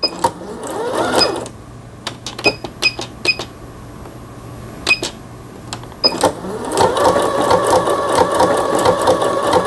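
Singer Confidence computerized sewing machine: a series of short electronic beeps as its control buttons are pressed. About six seconds in, the motor starts and it sews with a steady, even stitching rhythm.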